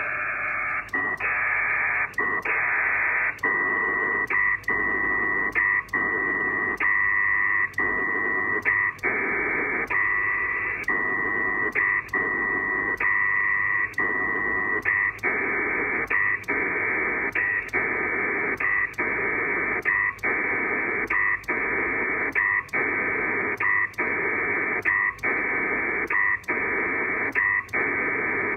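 Pactor data signal from a ham radio, a hissy warbling data sound with a steady high tone in it. It is broken by a short gap with a click a little more than once a second, the rhythm of the ARQ link's send-and-acknowledge cycle.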